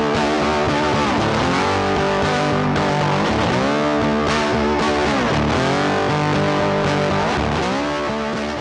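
Background music led by a distorted electric guitar, its notes bending up and down.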